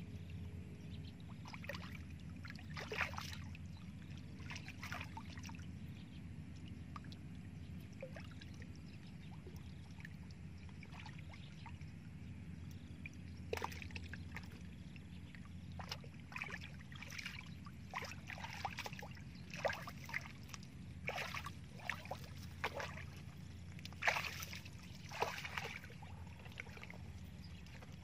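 Hands splashing and sloshing in shallow muddy water while groping in the mud for fish, in irregular short splashes that come more often in the second half, over a steady low rumble.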